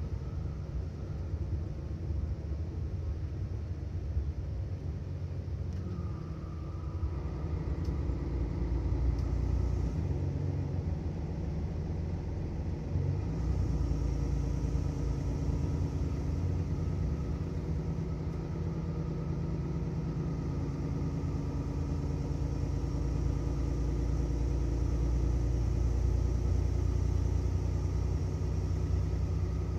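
Mercedes-Benz Citaro city bus engine running with a steady low rumble; the engine note shifts a couple of times, and a faint high whine comes in about halfway through.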